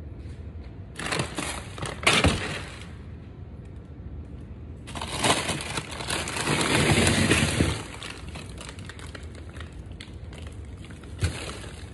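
Frozen packages crunching and clattering as someone rummages through a deep freezer, in a few noisy bursts, the longest and loudest about five to eight seconds in, with a sharp knock near the end.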